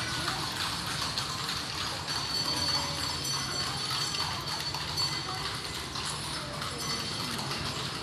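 Horse hooves clip-clopping on cobblestones from a horse-drawn calesa, as a run of uneven clicks over steady street noise.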